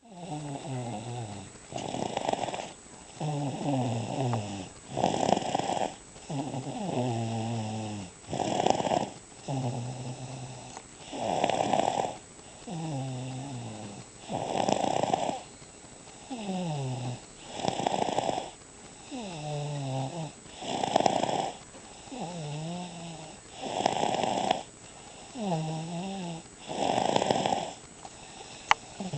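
Rhythmic snoring, one breath about every three seconds. Each breath starts with a buzzing tone that falls in pitch, then a louder rasping burst.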